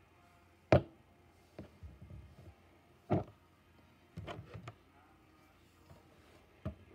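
Handling noises as a USB microphone cable is picked up and set down on a wooden desk: three sharp knocks, the first, under a second in, the loudest, with rustling and light clicks between them.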